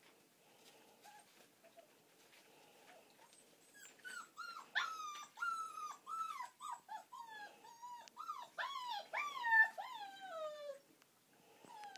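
A puppy yelping and whining in a fast run of high cries that each fall in pitch, starting about four seconds in and stopping about a second before the end. These are the distress cries of a puppy caught up in rough play with its littermates.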